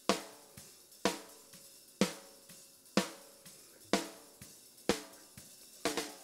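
Raw snare drum multitrack, top and bottom mics soloed, playing back: a snare hit about once a second on the backbeat, each ringing briefly, with faint smaller hits between and a quick double hit near the end. The snare-bottom track has its polarity flipped, which sounds worse than the original polarity.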